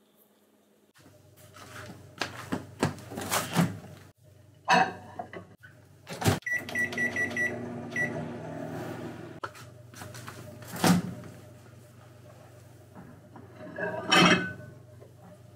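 Samsung microwave oven being used: door and plate clunks as the squash is put in, a quick run of keypad beeps as the time is set, then a steady hum while it runs, and more door clunks near the end as it is opened.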